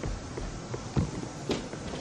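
Bare feet stepping down carpeted stairs: two soft thuds, about a second in and again half a second later.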